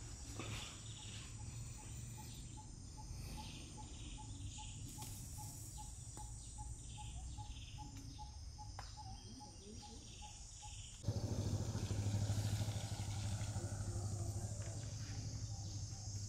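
Forest ambience of insects and birds, with one call repeating as short even pips about three times a second. About eleven seconds in, the sound cuts abruptly to a louder background with a low hum.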